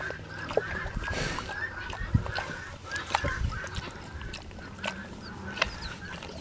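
Birds calling in a rapid, steady chatter, with a few sharp clicks from horse hoof nippers working on a pig's overgrown hoof.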